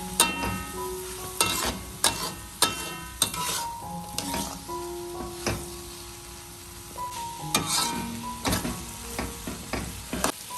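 Food frying in a pan, sizzling, while being stirred with a utensil that clacks and scrapes against the pan at irregular moments. Soft background music with held notes plays underneath.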